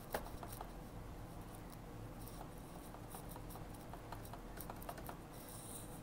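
Light typing on a Mofii wireless keyboard with round typewriter-style keycaps: faint, scattered key clicks.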